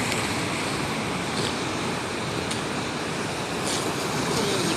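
Storm surf: heavy sea waves breaking and washing up the shore in a steady rush of water noise.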